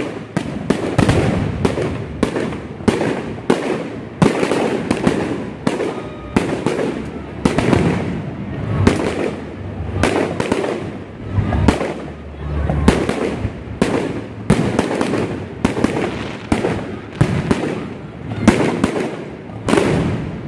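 Aerial firework shells bursting in quick succession: a continuous barrage of bangs and crackles, several a second.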